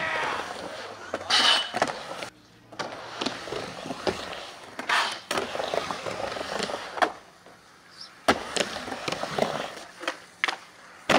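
Skateboard wheels rolling across a vert ramp, with several sharp clacks of the board hitting the deck and coping.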